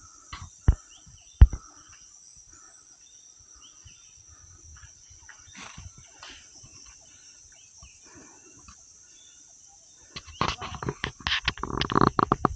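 A steady high drone of dusk insects with scattered short bird chirps. Two sharp knocks come about a second in. From about ten seconds in, the loudest sound is the crackling crunch of footsteps through dry leaf litter.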